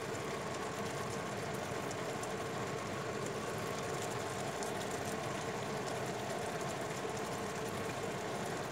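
Chicken breasts simmering in their juices in a frying pan: a steady sizzle with a low steady hum underneath.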